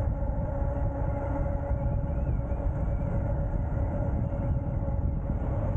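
Wind rushing over the microphone while the Ariel Rider X-Class 52v electric bike is ridden at speed, with the steady whine of its hub motor under it.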